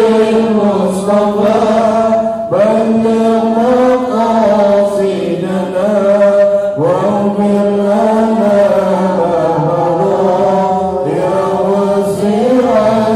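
Islamic devotional chanting in Arabic: a melody sung in long held notes, in phrases that break for breath about every four seconds.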